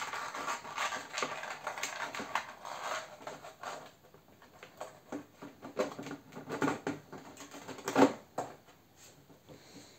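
Scraping, rattling and small clicks of hands fitting a brushless motor and its mount into the rear of a 3D-printed plastic wing, with one sharp knock about eight seconds in.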